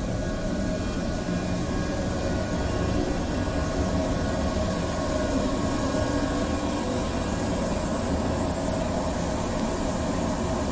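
Yellow 105-series electric trains standing at the platform with their onboard equipment running: a steady mechanical hum and hiss with a few steady tones.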